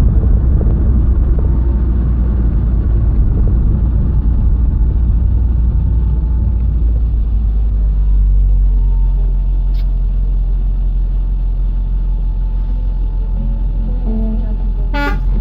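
Car interior noise while driving: a steady low engine and road rumble that eases about halfway through as the car slows at a roundabout and runs on at low speed. Just before the end there is a brief sharp, high sound.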